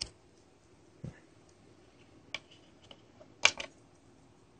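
A few light clicks and taps from a small circuit-board module and a metal pointer being handled on a wooden desk, with a sharper double click about three and a half seconds in.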